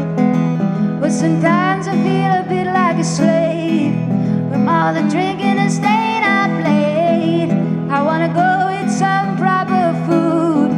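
A woman singing a blues song and accompanying herself on a steel-string acoustic guitar, her sung notes wavering with vibrato over the steady guitar.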